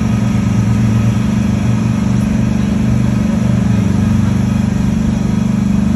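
Engine of a small trackless road train running steadily as it pulls its carriages along, heard from an open passenger carriage: a steady low drone.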